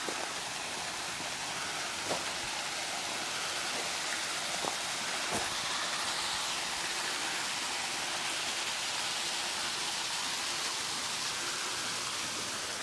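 Steady rush of water flowing down a concrete channel and splashing into a rock pool, with a few short clicks about 2 and 5 seconds in.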